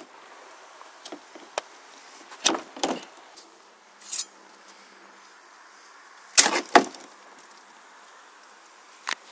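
Blade strikes on aluminium soda cans on a plastic play table: sharp chops, two pairs about half a second apart and one more near the end. Between the pairs comes a short hiss as carbonated soda sprays from a pierced can.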